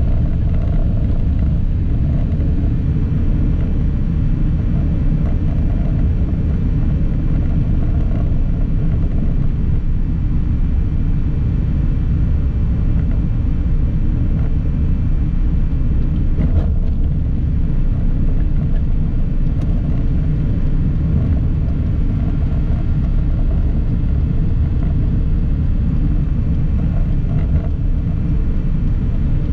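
Steady low rumble of a road vehicle on the move, engine and road noise heard from the vehicle itself, with a faint click about halfway through.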